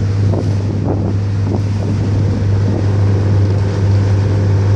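Motorboat engine running steadily under way, a constant low hum, with wind buffeting the microphone.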